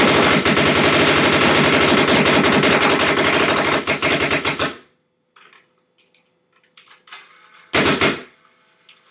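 Ego 9 paintball marker firing reballs on semi-automatic: a rapid, continuous string of shots lasting nearly five seconds. Then faint clatter, and a brief loud burst a little before the end.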